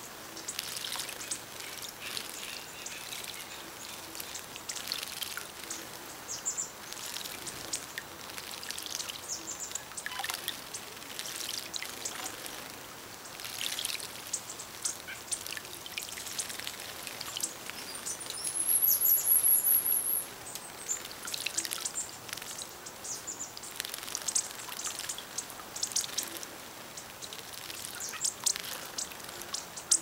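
Small songbirds bathing in a stone birdbath: light splashing and dripping water with frequent high, thin chips and twitters. A little past halfway, a loud high-pitched trill lasts about two seconds.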